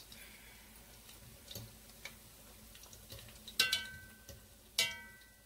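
Pholourie frying in hot oil with a faint crackle, and a metal fork clinking twice against the pot in the second half, each clink ringing briefly.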